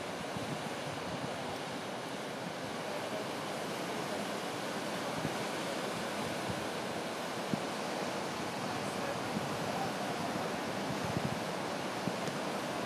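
Sea surf: small waves breaking and washing in a steady rushing wash.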